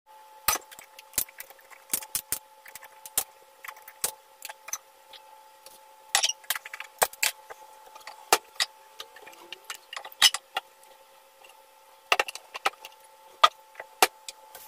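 Scattered sharp clicks, knocks and clinks of cookware being handled on a glass-top gas hob as a frying pan and a small steel pot are set down and a burner is lit, over a steady faint hum.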